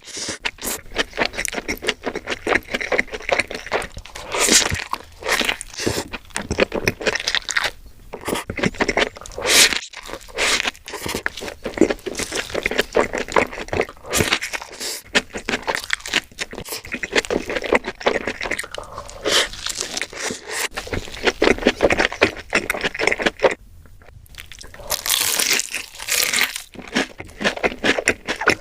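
Close-miked eating sounds: repeated crunchy bites and chewing of fast food, in quick irregular clicks and crackles.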